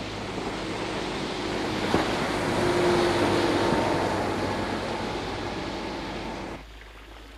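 Sound effect of a large ship passing at full speed: a rushing wash of water and engine noise that swells as it goes by, then fades. It drops away suddenly near the end.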